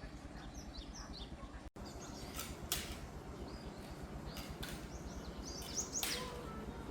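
Small birds chirping in short repeated calls over a steady low hum, with a few sharp knocks scattered through.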